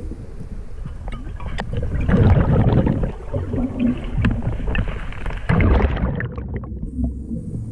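Underwater sound of a scuba diver exhaling through the regulator: two long bursts of bubbling and crackling, about two seconds in and again from about four to six seconds, over a steady low rumble.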